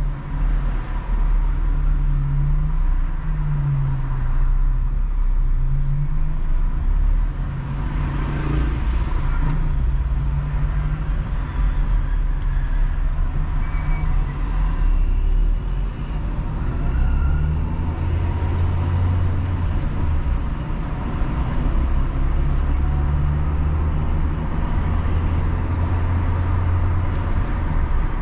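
Car engine and road noise heard from inside a moving car: a steady low drone whose pitch rises and falls with changes of speed, growing heavier in the second half.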